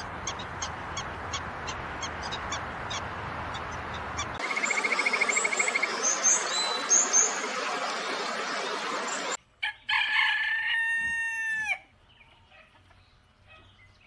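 A rooster crows once, about ten seconds in, the loudest sound here, and near silence follows. Before it, over a steady hiss, comes a series of short high chirps about three a second, then a brief fast trill with a few high chirps.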